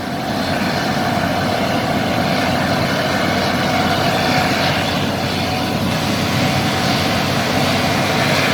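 70LE crawler bulldozer's diesel engine running steadily under heavy load as the machine strains to pull up a steep sandy slope.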